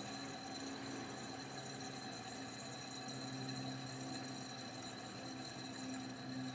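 A 1970 Montgomery Ward Signature window air conditioner running with a steady low hum and a thin high whine over a soft hiss.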